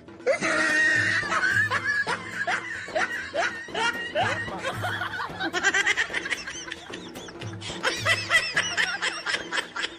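Snickering and chuckling laughter over background music with a steady beat.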